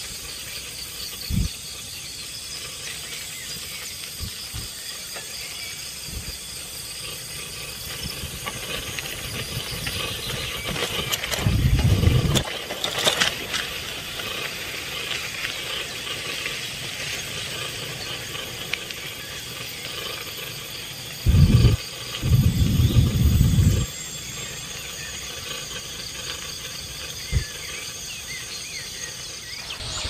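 Outdoor nature ambience: a steady high chirring and chirping background, broken by three short spells of low rumble, one about twelve seconds in and two soon after twenty seconds.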